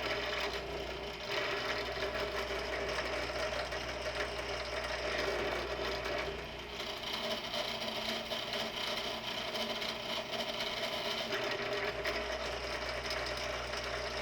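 Drill press running steadily, its bit cutting into metal.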